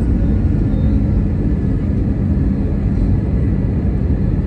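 Steady loud rumble in the cabin of an Airbus A320 rolling down the runway after landing, with jet engine noise and the wheels on the runway blended together.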